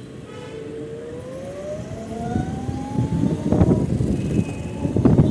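Electric scooter's motor whine rising smoothly in pitch as the scooter accelerates from a crawl, with wind buffeting the microphone growing louder in the second half.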